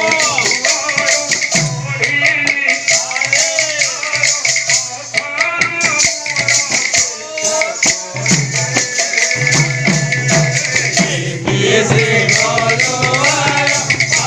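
Kirtan music: wooden kartal clappers with jingles rattling and clacking in a fast, steady rhythm over a drum, with voices singing.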